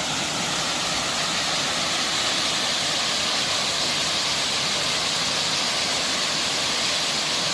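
Waterfall's falling water rushing steadily, close by.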